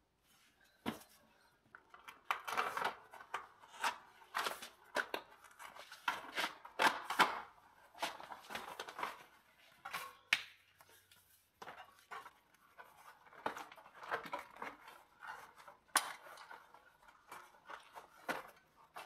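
Bicycle tire and inner tube being worked off and on the rim by hand: rubber rubbing, scraping and snapping against the wheel in irregular strokes, after a single click about a second in.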